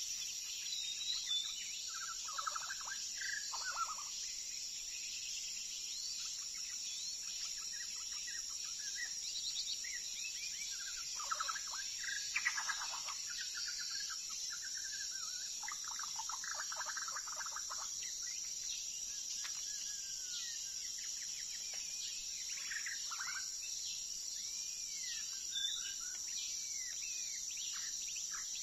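A songbird singing varied whistled phrases broken by quick rattling trills, over a steady high-pitched insect drone.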